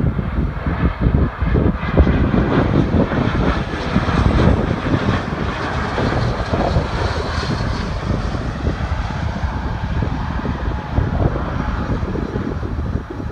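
Airliner engine noise, loud and continuous as an aircraft passes close, a deep rough rumble with a hiss that swells around the middle and eases a little toward the end.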